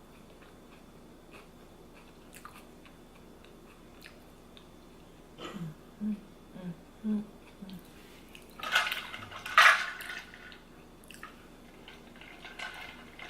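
A person eating close to the microphone: chewing and mouth sounds. A few short low blips come around the middle, and a louder noisy smacking burst about nine seconds in.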